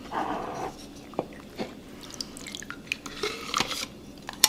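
Soaked dried guajillo and pasilla chiles lifted out of their soaking water with metal tongs: liquid dripping and splashing, with wet squishes and a few light clicks.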